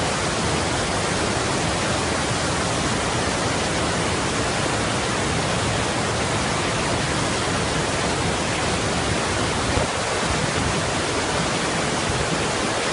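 Steady rushing roar of a river in flood, swollen by heavy rain, its muddy water churning over wide rapids.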